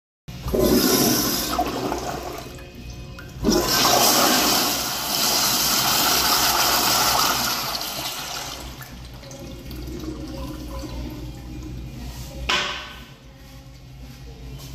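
American Standard Afwall flushometer toilet flushing: a loud rush of water that jumps louder about three and a half seconds in, holds for several seconds, then dies down to a quieter running refill. A short sharp swish comes near the end.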